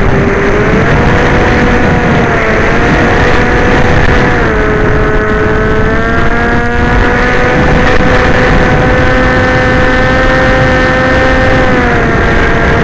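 Whine of the electric motor and propeller of a radio-controlled model aircraft, heard from on board over heavy wind rush. The pitch steps up and down several times as the throttle changes.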